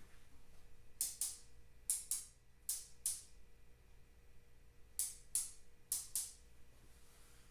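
A series of sharp clicks with short hissy tails, mostly in close pairs: three pairs in the first three seconds, then two more pairs after a pause of about two seconds.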